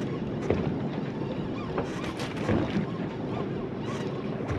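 Boat's outboard motor idling steadily, with wind on the microphone and a few short knocks and splashy hisses as a fish is reeled in.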